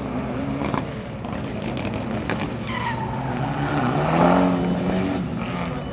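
Rally car's engine revving hard as the car slides through a corner, with tyre squeal; the engine note rises and is loudest about four seconds in as the car passes.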